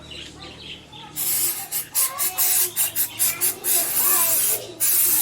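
Liquid being sprayed in a rapid series of short hissing bursts, starting about a second in, with a couple of longer sprays near the end.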